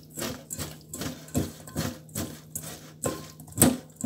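A hand scrubbing small bajori fish with salt in a stainless-steel colander: rhythmic scraping and rattling strokes, about two or three a second. The loudest is a sharp knock about three and a half seconds in.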